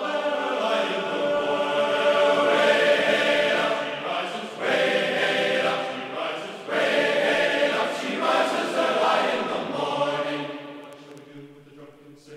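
Background music: a choir singing a sea shanty, loud at first, then getting quieter near the end.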